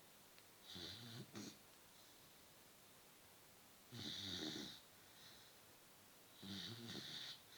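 Beagle snoring in its sleep: three short snores, each under a second long, spaced about two and a half seconds apart.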